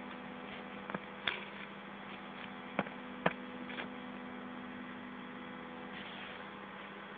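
Steady electrical mains hum, with a few faint clicks and knocks in the first few seconds.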